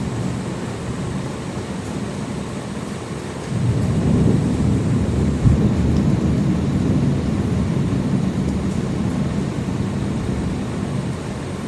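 Thunder rumbling low and long, swelling suddenly louder about three and a half seconds in, with a short sharp jolt about two seconds later, then slowly easing. A steady hiss of rain runs underneath.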